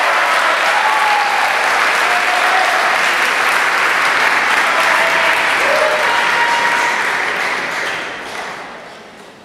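Audience applauding, with a few voices calling out in it; the applause fades away about eight seconds in.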